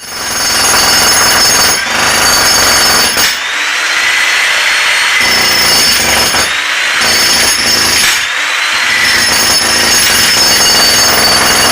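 Jackhammer running almost without pause to break out around a deteriorating drain pipe, with a few short let-ups as the operator pauses.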